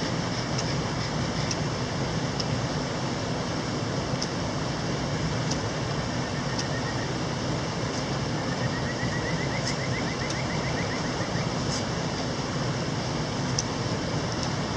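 A mountain stream rushing steadily, with scattered faint high ticks and a brief faint rapid chirping about halfway through.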